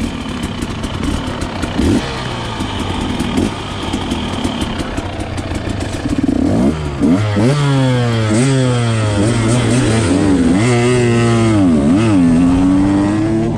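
2021 KTM 125XC two-stroke dirt bike engine under way, rough and noisy at first, then from about halfway revving up and dropping back again and again as the throttle is worked and the gears change.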